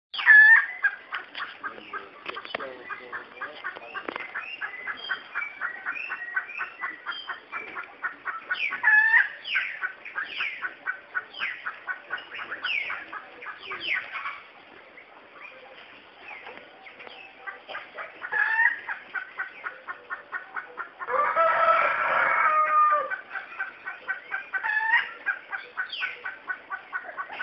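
Dawn chorus of birds, with rapid repeated chirps and downward-sweeping calls throughout. A rooster crows once, loudly, about 21 seconds in.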